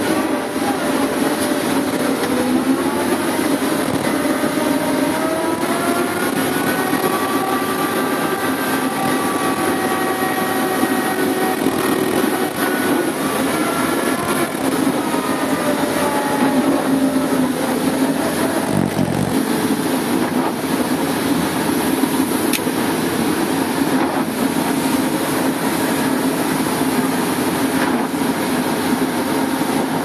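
Liebherr L566 wheel loader's diesel engine running under load, heard from inside the cab, as it pushes snow with a plow blade. A whine rises in pitch over the first several seconds, holds, then fades away around the middle.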